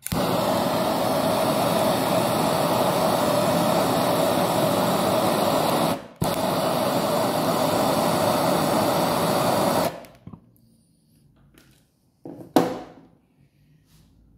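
Handheld Hotery HZ-8389 brazing torch burning LPG: its flame rushes steadily for about ten seconds while heating an aluminium-to-copper-capillary joint, cutting out for an instant about six seconds in, then shuts off. A single sharp knock follows near the end.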